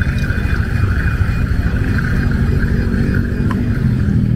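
Electric coffee grinder running fast, powered through an inverter from the motorbike's battery, over the steady low rumble of the motorcycle engine idling to keep the battery charged.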